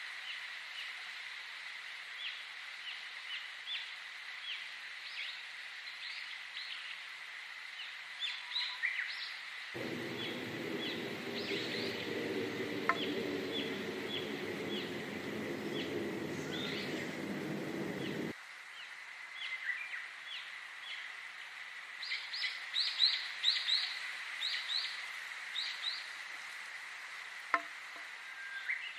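Many small birds chirping, with short high chirps throughout that are busiest near the end, over a steady thin high tone. For several seconds in the middle, a low hum joins and then cuts off suddenly.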